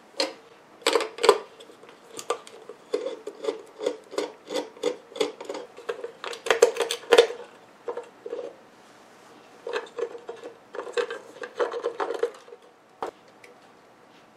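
Small metal parts and hand tools handled and worked on a workbench: an uneven run of sharp clicks, taps and short scrapes. The sounds thin out after about twelve seconds, with one last click a little later.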